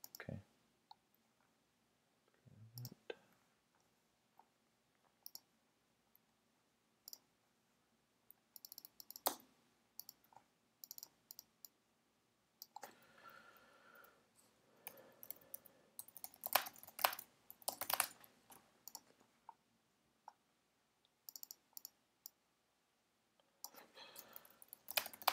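Faint computer mouse clicks and keyboard keystrokes, sparse at first with quicker runs of typing in the second half.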